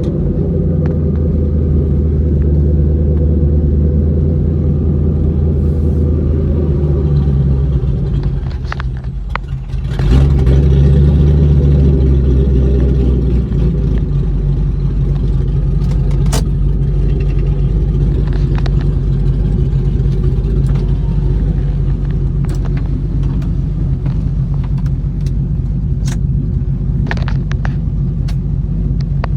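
Car engine and exhaust running while driving: the low drone drops off about eight seconds in, comes back loudest around ten seconds, then settles to a lower steady note from about fourteen seconds. A few sharp clicks are heard near the end.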